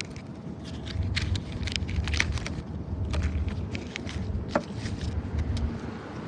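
A trading-card pack wrapper being torn open and crinkled, with many irregular crackles, over a low steady rumble.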